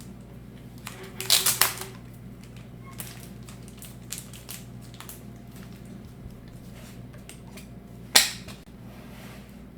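Handling of trading cards and plastic packaging: a burst of plastic rustling about a second in, scattered light clicks, and one sharp knock near the end, the loudest sound, over a low steady hum.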